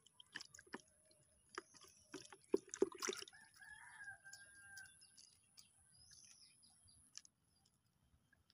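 Faint rooster crowing, one drawn-out call about three and a half seconds in. A cluster of sharp clicks and knocks comes just before it, and a thin steady high whine runs under both.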